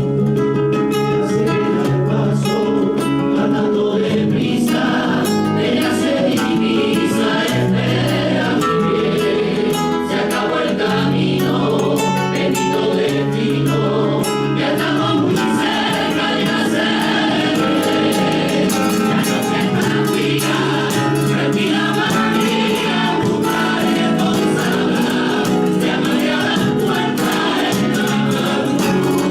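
A villancico, a Spanish Christmas carol, sung by a choir of voices over instrumental accompaniment, as steady continuous music.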